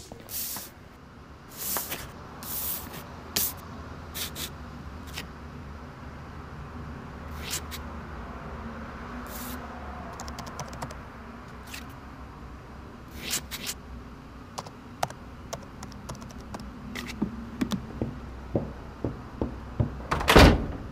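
Laptop keyboard typing in irregular clicks, with a loud sharp knock near the end.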